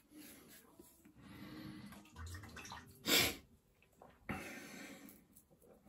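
Rotbart Mond-Extra safety razor scraping through lathered stubble in short strokes. A loud, short rush of noise comes about three seconds in, and another sharp one just after four seconds.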